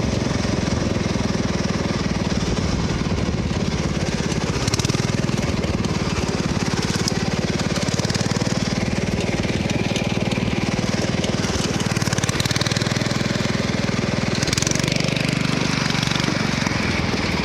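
Riding lawn mower engine running steadily, with a fast, even putter.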